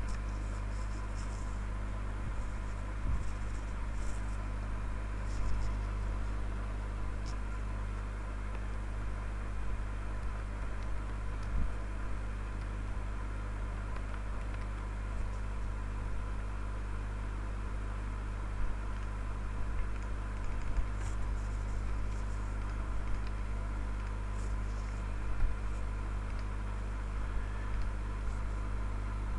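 Steady low electrical hum with hiss, and a few scattered faint clicks from a computer keyboard and mouse.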